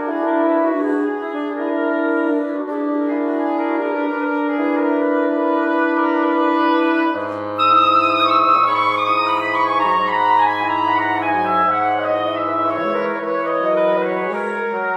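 Wind quintet playing: flute, French horn and other woodwinds in sustained, overlapping notes. About seven seconds in, a low bass line enters under the chords and the music gets slightly louder.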